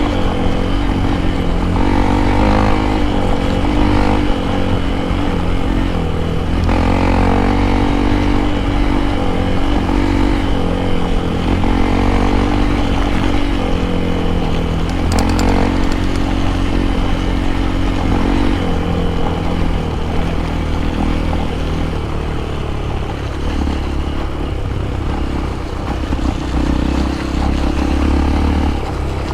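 Hero Impulse motorcycle's single-cylinder four-stroke engine running under load on a dirt trail, its pitch rising and falling in steps as the revs change, over a steady low rumble.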